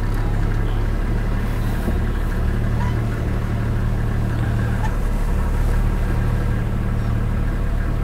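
Land Cruiser safari vehicle's engine idling steadily with a constant low hum.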